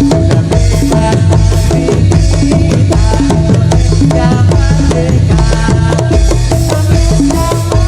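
Loud Topeng Ireng dance accompaniment: a fast, steady drum rhythm with deep drum strokes under a repeated stepping melody.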